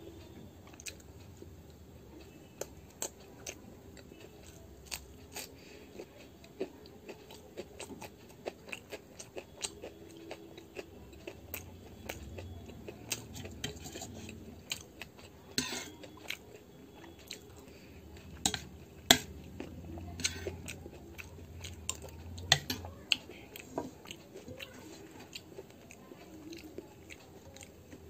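A person chewing and biting mouthfuls of gobhi paratha, with many small mouth clicks and smacks throughout. A few louder sharp clicks come about two-thirds of the way through.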